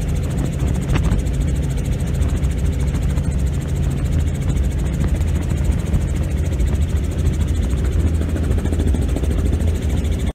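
Helicopter heard from inside its cockpit: a loud, steady low drone of rotor and engine with a fast, even beat running through it.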